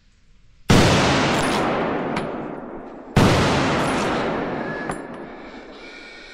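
Two shots from a Blaser R8 hunting rifle, about two and a half seconds apart. Each is a loud crack followed by a long echo that fades away slowly.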